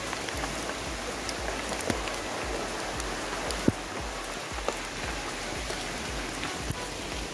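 Steady rain falling, with scattered drops tapping close by and one sharper tap about three and a half seconds in.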